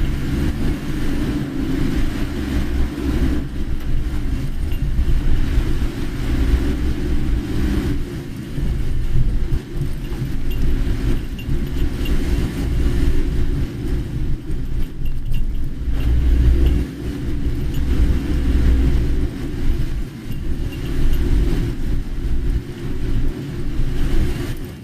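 A car driving on a road: a continuous low rumble of engine and tyre noise that swells and eases.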